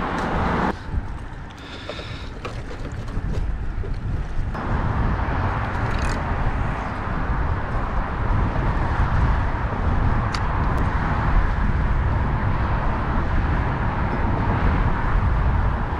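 Wind blowing across the camera microphone: a steady rumbling hiss, with a few sharp clicks.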